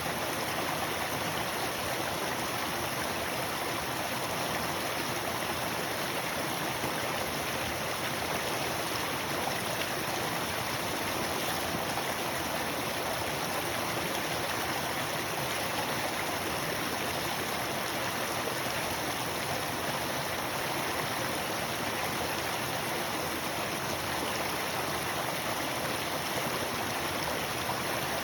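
Flowing water, a steady even rush with no breaks.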